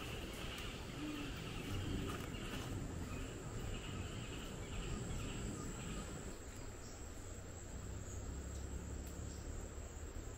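Insects keep up a steady, high-pitched trill, joined for the first six seconds or so by a lower pulsing chirp, over a low rumble.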